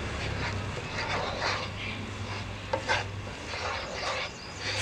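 Wooden spatula stirring and scraping a thick chili-butter paste around a nonstick frying pan, in irregular short strokes.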